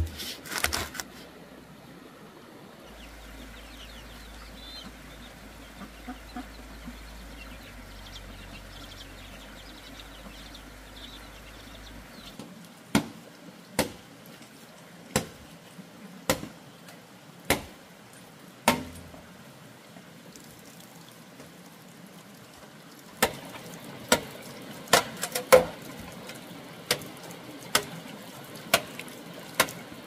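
A series of sharp knocks, like a hand tool striking: about one every second or so from about halfway through, then after a short pause a second, quicker run near the end.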